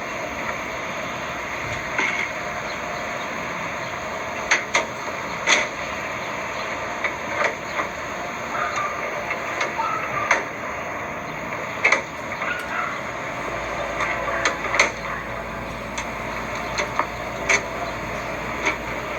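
Scattered sharp metal knocks and clunks, about a dozen, over a steady background hiss, as a pickup-bed toolbox is moved about and handled.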